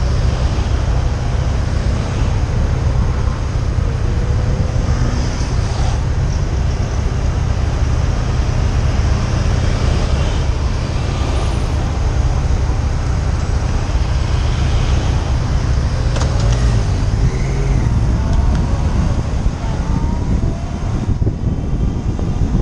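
Motorcycle engine idling at a standstill amid busy city traffic, a steady low rumble with passing vehicle noise. Near the end it pulls away and wind on the microphone comes in.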